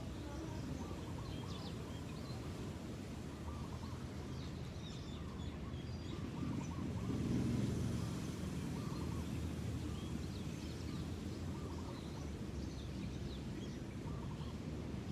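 Many small birds chirping and twittering over a steady low outdoor rumble, which swells briefly about halfway through.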